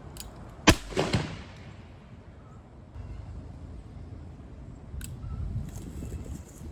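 A single shot from a long-barrelled Colt Navy-style cap-and-ball revolver, sharp and loud, a little under a second in, followed by an echo that rolls back and dies away over about a second. Wind rumbles on the microphone after it, and a light click comes about five seconds in.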